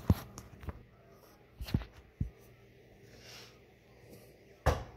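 A few sharp knocks and thumps of things being handled and set down on a kitchen counter, the loudest at the very start and near the end.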